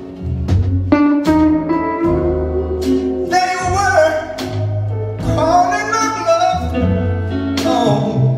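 Live soul-blues band music with a male singer holding long, sliding vocal notes over a steady beat.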